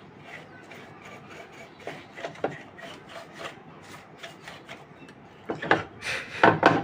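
Dry scrubbing strokes on an amplifier's volume-control circuit board as dust is cleaned off it, irregular and scratchy, becoming louder and quicker in the last second and a half.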